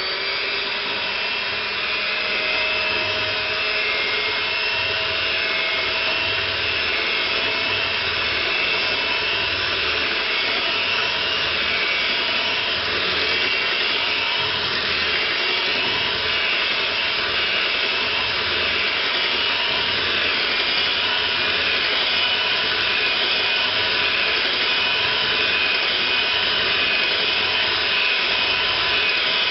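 Electric hand mixer running steadily on its lowest speed, its beaters whirring through liquid pumpkin pie filling in a glass bowl.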